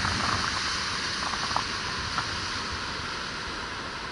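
Surf washing in over a rocky shoreline: a steady hiss of foaming water that eases slightly, with a few faint clicks.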